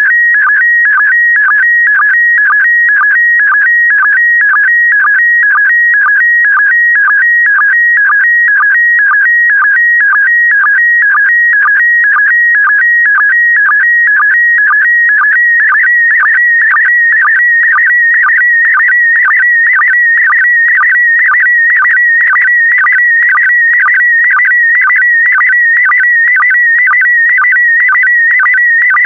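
PD120 slow-scan television (SSTV) image signal: a continuous high electronic tone that warbles in pitch as the picture lines are sent, broken by a short lower sync blip about twice a second.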